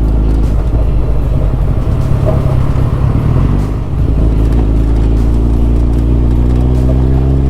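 Suzuki Hayabusa's inline-four engine running under way, with wind and road noise on the helmet or bike microphone; the engine note dips briefly about four seconds in, then picks up again.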